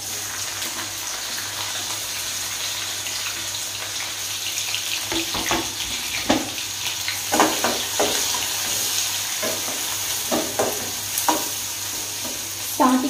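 Chopped onions sizzling in hot mustard oil in a kadai: a steady frying hiss that starts suddenly as the onions go in. From about five seconds in it is broken by scattered scrapes and taps of a metal spatula stirring them.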